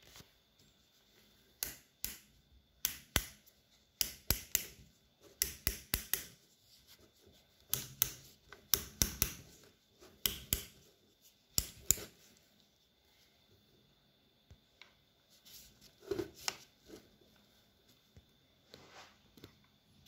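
Torque-adjustment collar of a cordless hammer drill being turned by hand, its detents giving short, irregular runs of sharp clicks with pauses between.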